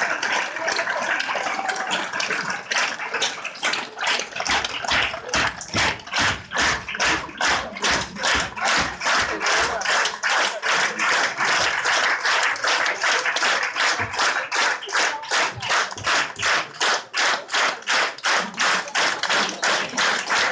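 Theatre audience applauding. The clapping soon falls into time, rhythmic clapping in unison at about two to three claps a second.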